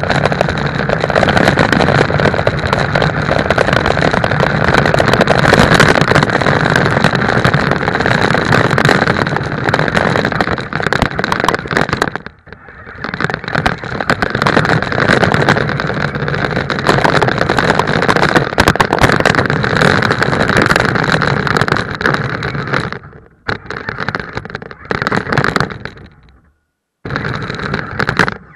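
Radio-controlled toy car's electric motor and gears running with a steady high whine and rumbling wheel noise on tarmac, heard close up from a camera mounted on the car. It stops briefly about twelve seconds in and drops out a few times near the end.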